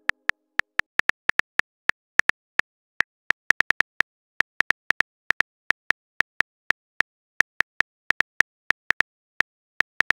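Phone keyboard key-click sound effect: a rapid, irregular run of short clicks, about four or five a second, as a text message is typed out letter by letter.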